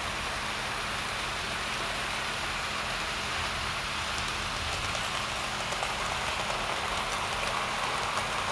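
OO gauge model steam locomotive and coaches running along the track: a steady rushing rattle of wheels on rails over a low hum, growing louder near the end as the train comes close.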